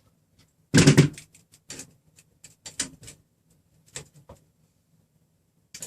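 Light clicks and taps of metal parts and a measuring tool being handled while the printer's rod spacing is measured and adjusted: a short clatter about a second in, then scattered single clicks.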